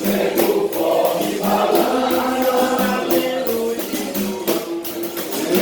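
A folk song sung over percussion, with sharp hits recurring through the singing.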